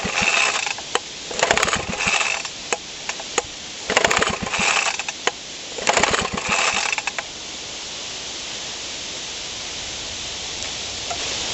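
A cold Suffolk mower engine being pull-started four times. Each pull is about a second of the recoil starter whirring while the engine turns over and clatters on its newly regained compression, and it does not catch.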